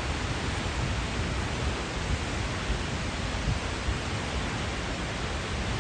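Skógafoss waterfall plunging into the Skógá river, a steady, unbroken rush of falling water.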